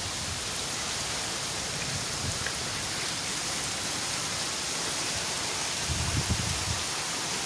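Rain falling steadily in a storm, a dense even hiss, with a brief low rumble about six seconds in.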